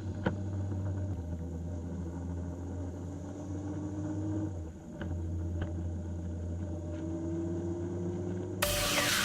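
Motorcycle engine running while riding, a steady drone whose pitch slowly rises, with a short dip in level about halfway through. A sudden louder, brighter sound cuts in near the end.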